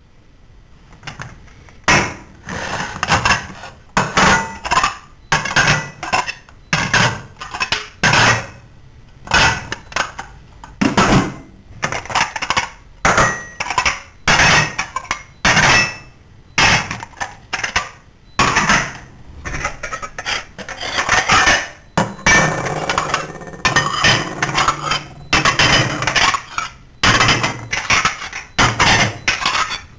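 Kitchen clatter: pots, pans, dishes and cutlery knocking and clinking against each other in quick, irregular succession.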